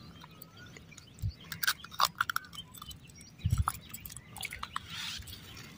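Small scattered clicks, clinks and rustles of a metal spoon lure and its hook being worked free by hand from a catfish's jaw, with a few soft knocks of the fish and lure against gravel.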